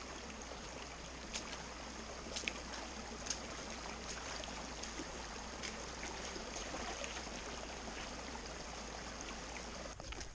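Shallow rocky forest stream running with a steady rush and trickle, with a few faint sharp ticks over it.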